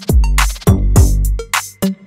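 Background music with a drum-machine beat: deep bass kicks that slide down in pitch, under crisp snare and hi-hat hits.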